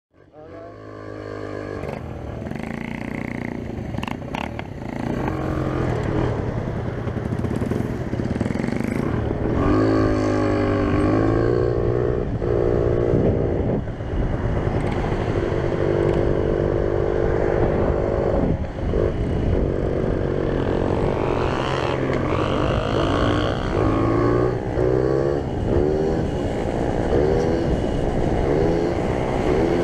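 Peugeot Speedfight 100 scooter with a tuned two-stroke racing engine, heard from on board as it rides. Its engine note climbs in pitch and drops back through repeated accelerations, with a steadier stretch of cruising in the middle.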